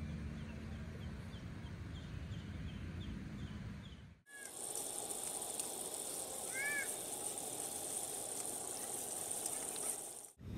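Outdoor nature ambience in two shots. First comes a row of small high chirps, about three a second, over a low rumble. After a cut about four seconds in there is a steady high hiss, with a short bird call near the middle.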